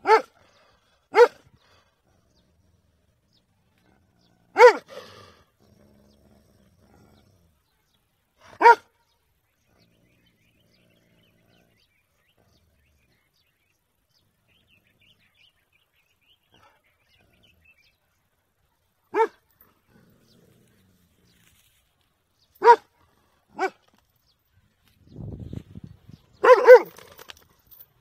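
A large dog barking, single short barks a few seconds apart with a pause of about ten seconds midway. Near the end comes a low rumble, then a quick run of several barks.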